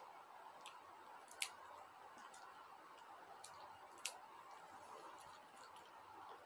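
A small dog crunching a puffed rice snack: a few short, sharp crisp crunches, the two loudest about a second and a half in and about four seconds in, over faint room hiss.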